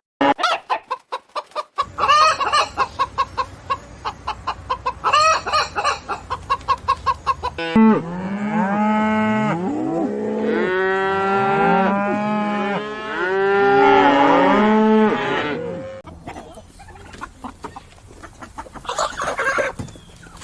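Farmyard animals calling: chickens clucking in quick repeated notes, then a long stretch of drawn-out pitched calls with cattle mooing, quieter for the last few seconds.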